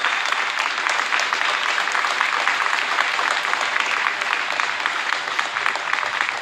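An audience clapping: steady, sustained applause.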